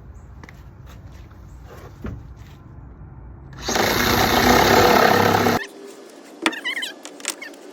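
A power saw cutting a plywood subfloor board to trim it to fit: about two seconds of loud, steady cutting starting a little past halfway and stopping abruptly. A low steady hum runs before it, and a few clicks and short squeaks follow.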